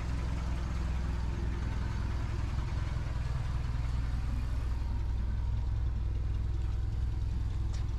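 The Suzuki Samurai's swapped-in Sidekick 1.6-litre 16-valve four-cylinder engine idling steadily.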